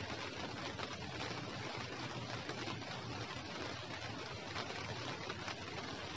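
Light drizzle falling steadily: an even, unbroken hiss of fine rain.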